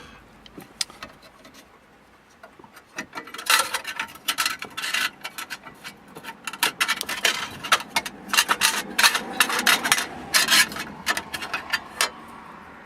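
A hand rummaging among small hard objects: irregular clicks, light rattles and rubbing scrapes, starting about three seconds in and going on until near the end.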